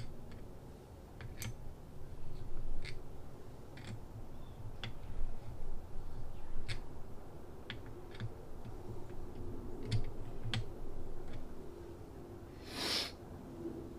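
Scattered light clicks and taps of hand tools and metal parts as a Helicoil thread insert is wound into a stripped bolt hole in a mower transmission case, with a short scraping rustle near the end.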